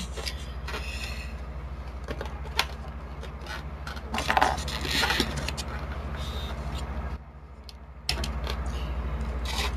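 Small metal and plastic parts of an airsoft rifle being handled: scattered clicks and clinks with some rustling, over a steady low hum that drops out for about a second near the seven-second mark.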